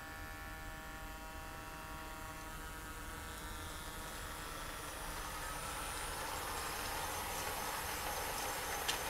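H0-scale model MaK 400C diesel locomotive running past with a steady whine that fades as it moves away, followed by the rising rolling noise of its box wagons on the model track, with a single sharp click near the end.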